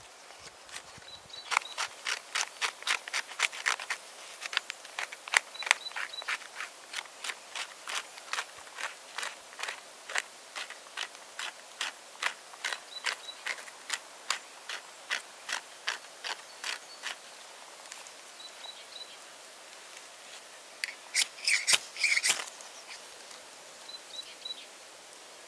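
Birch bark scraped into fine tinder in regular strokes, about two or three a second, with a crisp, dry sound. Near the end comes a quick, louder cluster of harsh rasping strikes from a ferro rod raked against the bark pile to throw sparks.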